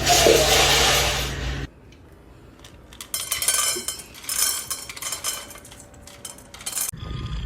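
Automatic pet feeder dispensing: its motor turns and dry kibble clatters into the bowl in several bursts. Before that, a loud steady noise from another clip cuts off suddenly.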